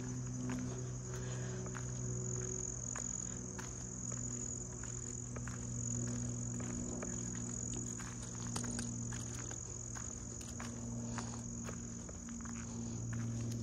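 Steady electrical hum from the powerhouse's rooftop switchyard transformers, with overtones stacked above it. Over the hum runs a continuous high-pitched insect drone, and there are scattered light clicks.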